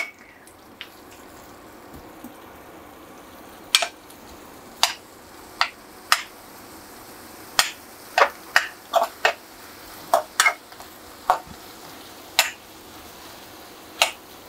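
Sliced onions and tomatoes sizzling in a metal kadai while a steel spoon stirs them, the spoon clinking and scraping against the pan about once a second, irregularly.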